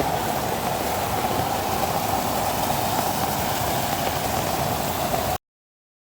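Steady rushing noise of flowing floodwater, cutting off suddenly near the end.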